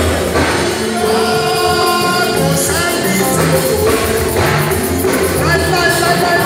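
Loud live worship music: a church band with keyboard and drums playing under singing voices.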